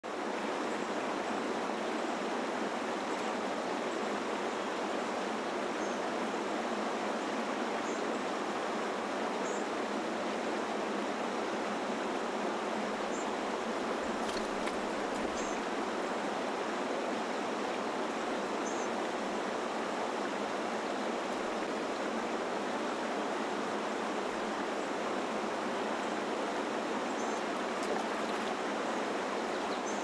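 Steady rushing of a mountain stream, an even water noise, with a few faint short high chirps now and then.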